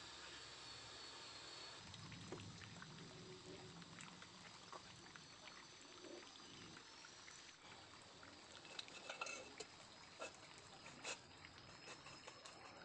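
Near-quiet outdoor background with scattered light clicks and knocks from tools and parts being handled in a wooden canoe hull, the sharpest of them between about nine and eleven seconds in.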